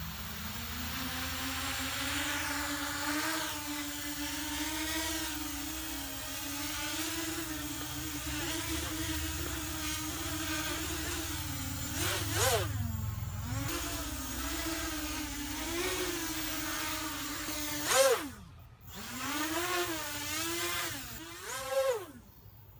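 Brushless motors and propellers of a 250-size carbon-fibre racing quadcopter, fitted with 2204-size 2300 kV motors, spinning up from the ground into a hover. They make a steady buzzing whine that wavers slightly with each throttle correction. Later on, quick throttle punches make the pitch swoop sharply up and back down several times.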